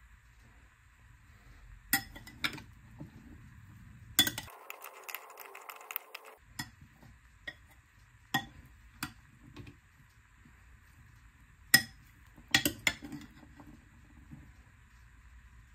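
Metal spoon mixing a chickpea salad in a glass bowl: scattered sharp clinks of metal on glass at uneven intervals, some in quick pairs, between softer stirring.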